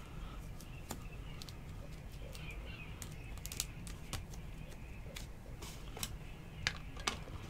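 Scattered light clicks and taps of hard clear plastic card cases being handled while a thick card is fitted into a slider box, with a cluster of sharper clicks about three and a half seconds in and two more near the end.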